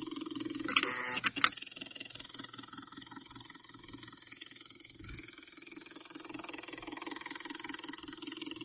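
IV infusion pump running: a steady mechanical hum with a fast pulsing texture. About a second in comes a quick cluster of three or four sharp clicks.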